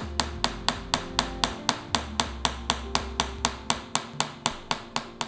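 A chasing hammer tapping a small steel chasing tool against silver supported in pitch. The light strikes are sharp and evenly spaced, about four a second: chasing a line into the metal.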